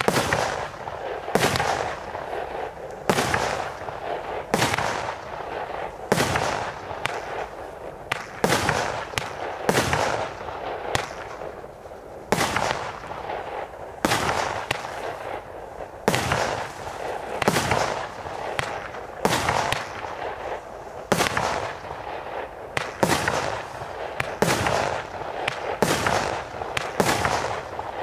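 Zeus Fireworks Spitting Cobra, a 24-shot 18 mm consumer barrage cake, firing shot after shot, roughly one a second. Each shot is a sharp bang with a short fading tail.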